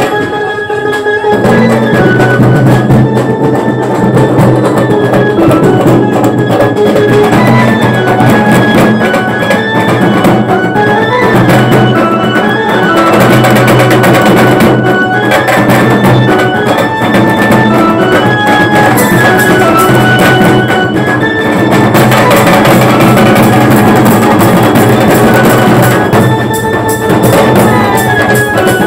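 Bengali wedding band party playing a tune over loud, driving drums. The drums come in about a second and a half in.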